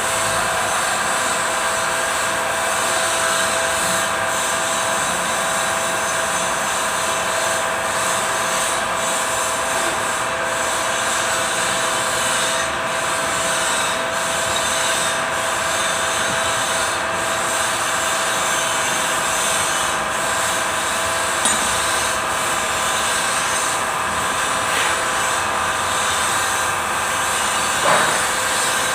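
Kubota Z751 two-cylinder diesel engine running steadily at a constant speed. A short knock comes near the end.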